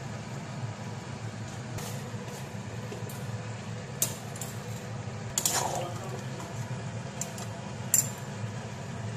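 A few sharp metallic clinks of a metal utensil against an aluminium kadai of simmering curry, the loudest about five and a half seconds in with a brief ring, over a steady low hum.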